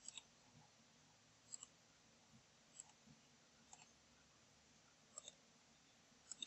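Faint computer mouse button clicks, about six of them, each a quick double tick, roughly one every second and a quarter. Each click sets the next point of a polyline being drawn.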